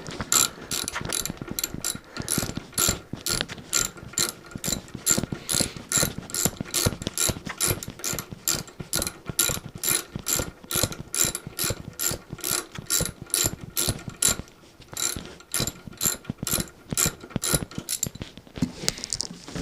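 Ratchet wrench clicking as it is swung back and forth to undo the bolts holding a motorcycle's seat and saddlebags, about two to three clicks a second, with a short pause near the end.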